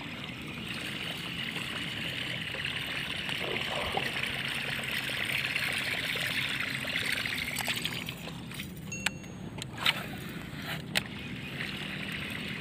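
Lure casting and retrieving with a rod and reel over open water: a steady hiss that swells and then fades about eight seconds in, followed by a few sharp clicks.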